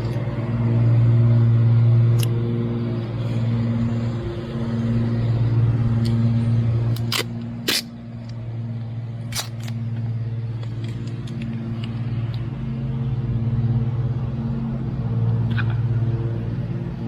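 An engine running steadily at constant speed, with a few sharp clicks about halfway through.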